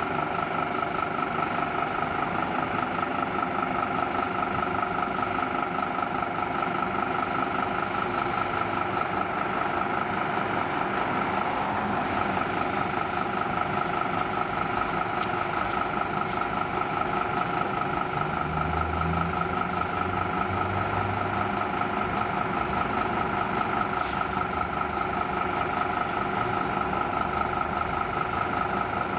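Scania fire engine idling under a steady, rapidly rippling high tone that does not change pitch. A short burst of deeper engine sound comes about two-thirds of the way through.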